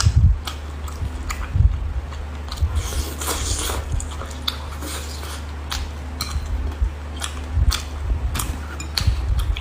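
A person chewing and biting cooked roe-filled baby squid close to the microphone, with wet clicks and crackles scattered throughout, over a steady low hum.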